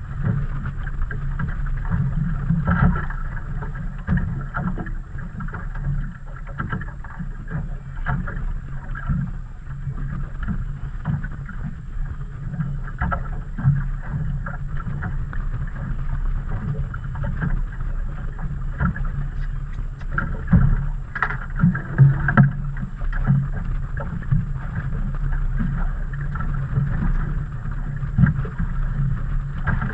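Onboard sound of a small fishing boat on open water: a steady low rumble of wind and water against the hull, with irregular knocks and slaps throughout.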